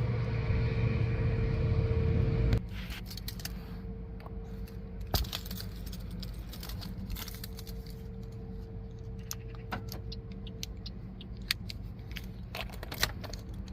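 Car keys jangling and clicking, with scattered small clicks and rattles over a steady low hum that drops sharply about two and a half seconds in.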